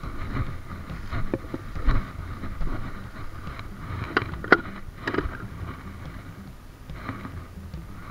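Rustling and handling noise in long grass, with a few sharp knocks about halfway through as a large plastic water bottle is gripped and handled.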